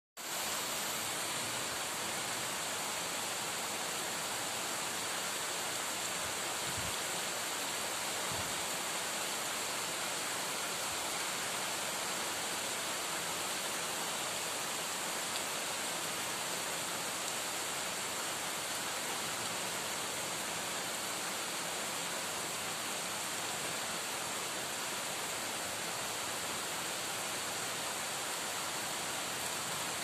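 Heavy rain falling steadily, a dense, even hiss that does not let up.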